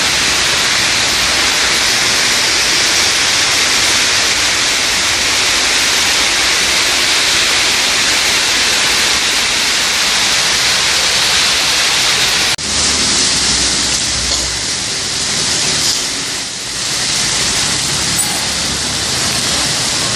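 Loud, steady hiss of rushing water, broken by a sudden cut about twelve and a half seconds in, after which it goes on a little less evenly with a few dips.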